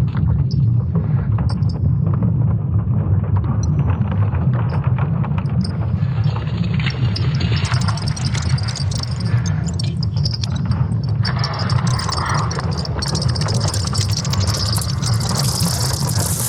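Sonification of Earth's magnetic field made from satellite data: a steady deep rumble with scattered crackles and creaks. A brighter hissing layer swells in over the second half.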